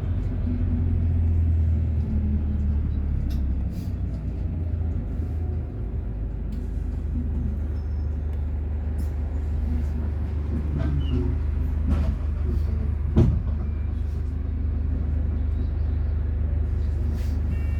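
A heavy vehicle engine running steadily with a low rumble, with a single sharp knock about thirteen seconds in.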